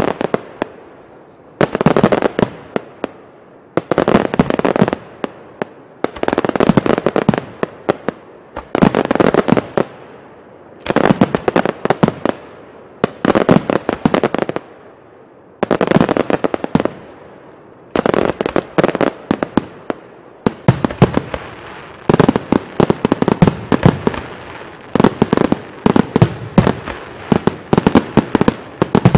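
Aerial fireworks bursting overhead in a steady run: a cluster of sharp bangs and crackles about every two seconds, coming closer together and more continuous near the end.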